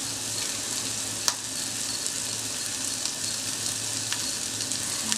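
Hot oil sizzling steadily in a steel kadai under freshly added shredded banana flower and a tempering of onion, garlic, red chillies and curry leaves. There is one sharp click about a second in.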